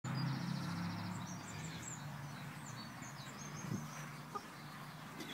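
Backyard hens making low, steady calls, with quick high bird chirps over them for the first three seconds or so.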